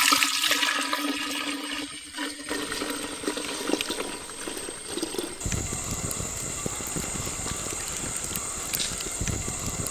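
Milk poured from a jar into a clay pot, splashing and filling loudest in the first two seconds and then trailing off. About five seconds in, it gives way to a wood fire burning under the pot, a low rumble with occasional crackles.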